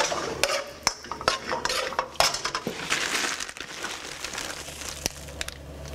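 Kitchen clatter: scattered knocks and clinks of dishes and utensils being handled on a counter, with a short stretch of rustling about halfway through.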